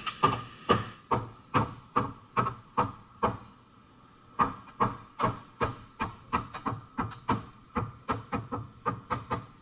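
Hammer striking car-body sheet metal in quick, evenly spaced blows, about two a second, each with a short metallic ring. The blows pause for about a second a little before halfway through, then carry on. This is body damage being knocked out of the dented panel metal.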